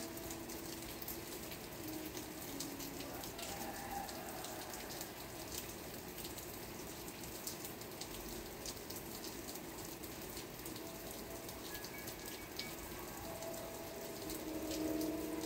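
Steady rain, with many separate drops ticking on a surface. A few faint held tones sound near the start and again near the end.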